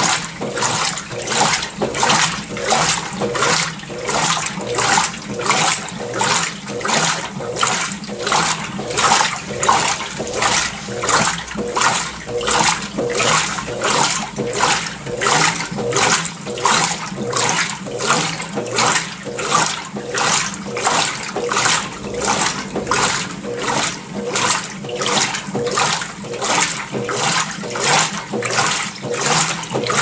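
Consul CWL16AB top-load washing machine in its wash agitation: the agitator drives back and forth through a full tub of soapy water and clothes, making an even, steady rhythm of water swishes, one with each stroke.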